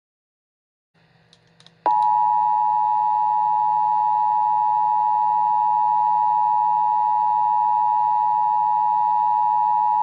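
Emergency Alert System attention signal: the two-tone 853 and 960 Hz alarm sounding steadily, starting abruptly about two seconds in after a few faint clicks, over a faint low hum.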